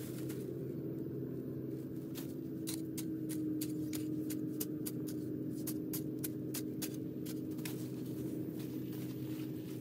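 A hoe blade scraping and chopping into gritty soil, a run of sharp irregular clicks from about two seconds in, over a steady low hum.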